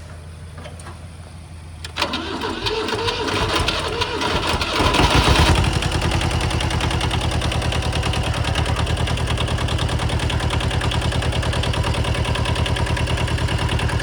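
Kubota L175's small two-cylinder diesel engine, pre-warmed with its glow plugs, cranked by its starter from about two seconds in and catching about three seconds later, then settling into a steady, evenly pulsing idle.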